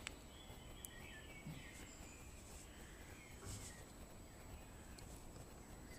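Near silence: faint background noise with a few faint chirps and a couple of small light clicks near the start.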